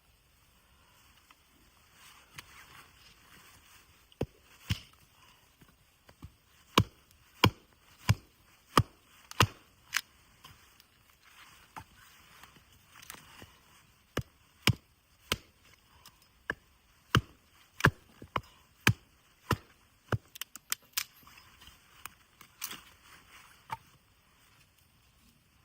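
Wood being chopped at camp: a series of sharp strikes in quick runs of about one and a half a second, with short pauses between the runs.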